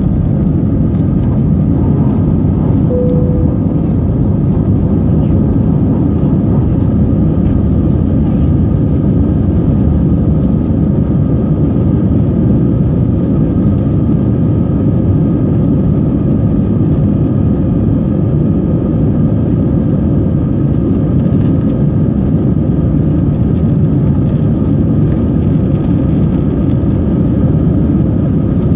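Airbus A319 jet engines at takeoff thrust, heard inside the passenger cabin as a steady loud rumble with a faint whine on top, through liftoff and initial climb. A brief tone sounds about three seconds in.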